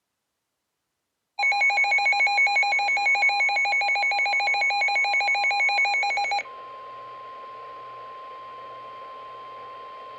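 Emergency alert tones on weather radio: about a second and a half in, a loud, rapidly pulsing electronic alert sounds for about five seconds, then gives way to the steady single-pitched NOAA Weather Radio warning alarm tone, quieter and over radio hiss.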